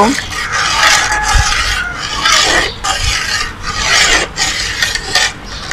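A metal utensil scraping and rubbing around the inside of a metal bowl in repeated stirring strokes, mixing beaten sour yogurt starter into cooled, thickened milk.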